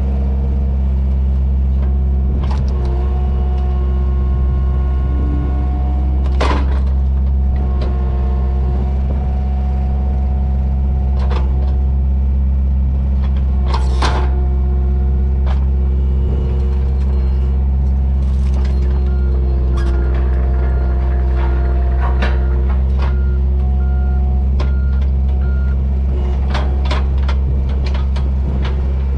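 John Deere excavator's diesel engine running steadily under load, with hydraulic whine shifting in pitch as the arm works the Side Tool splitting head. Now and then there are sharp cracks and knocks as the head bites into and splits logs.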